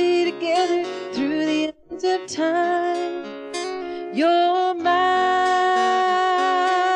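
A song: a woman singing over acoustic guitar, ending on one long held note from about five seconds in.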